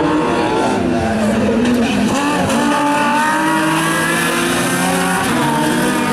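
BMW E30 rally car's engine revving hard as it accelerates past at racing speed. The pitch climbs and drops with throttle and gear changes, with a short dip about two and a half seconds in.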